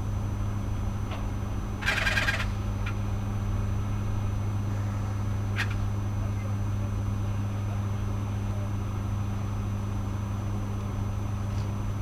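A large engine running with a steady low drone, and a short metallic rattle or clank about two seconds in.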